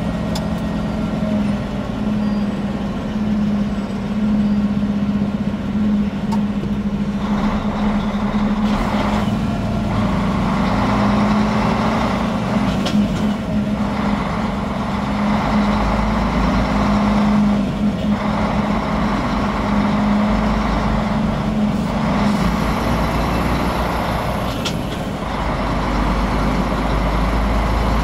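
Road-vehicle engine drone and road noise heard from inside a moving cabin at motorway speed. A steady low hum runs throughout, and tyre hiss swells several times.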